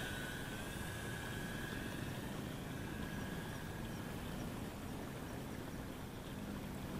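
Electric motor and propeller of an RC glider whining as it flies away, the tone dropping slightly in pitch about half a second in and fading out by about four seconds, over steady background noise.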